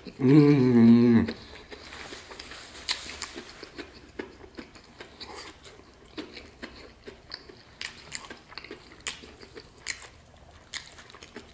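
Close-up chewing and crunching of battered fried chicken, with irregular sharp crackles of the crust between the teeth. At the start a person's voice hums for about a second, wavering up and down.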